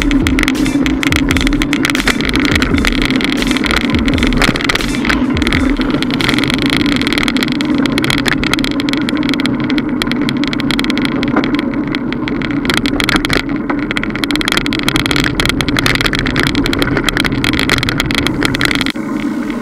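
Riding noise from a 2011 Trek 3700 mountain bike on the road: a steady, loud hum with many small clicks and rattles throughout, picked up by the bike-mounted action camera. The sound dips and changes briefly near the end.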